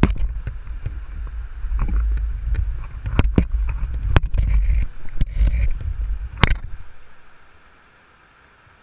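Handling noise on the quadcopter's onboard camera: a low rumble with several sharp knocks as the drone is moved and set down on river rocks, its propellers not running. The noise dies away about seven and a half seconds in, leaving a faint steady hiss.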